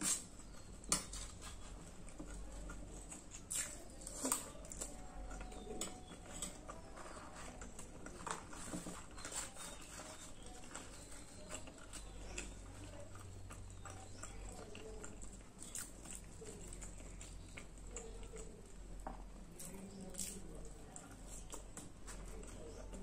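Close-miked chewing and wet mouth sounds of someone eating chickpea curry and puri, with scattered short clicks and soft taps from a spoon and from puri being torn by hand.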